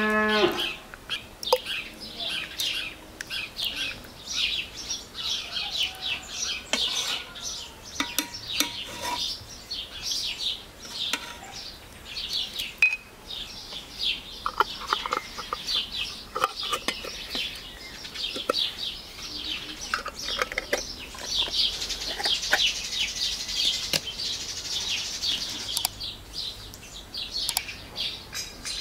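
Many small birds chirping busily and without a break. A cow's moo dies away right at the start, and a few sharp clicks or clinks sound here and there.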